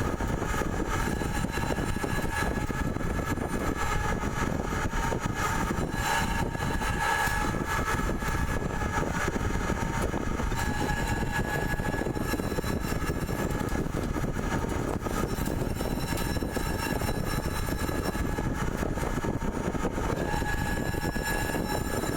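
CNC pipe threading machine running, a steady mechanical noise with faint high whining tones held through it.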